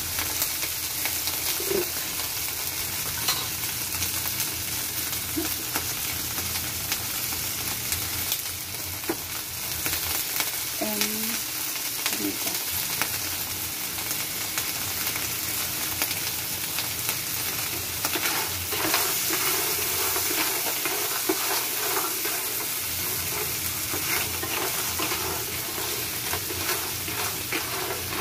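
Clams sizzling in hot oil with onion, garlic and tomato in a pan, stirred with a wooden spatula, with scattered clicks of shells knocking against each other and the pan throughout.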